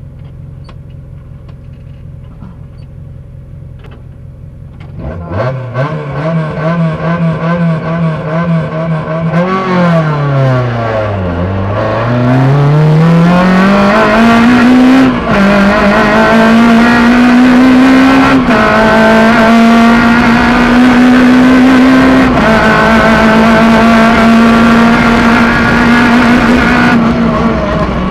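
Suzuki Swift GTi rally car's 1.3-litre four-cylinder engine heard from inside the cabin: idling steadily, then launched hard about five seconds in. It revs high up through the gears, the pitch dipping and climbing again around ten seconds in, with several gear shifts that drop the note briefly before it climbs again.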